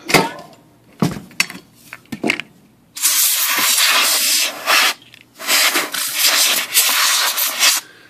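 Compressed air hissing from an air nozzle in two long blasts, about two seconds and then about two and a half seconds, blowing lacquer thinner and clutch and belt debris out of a typewriter's motor area. A few light knocks and clicks come before the blasts.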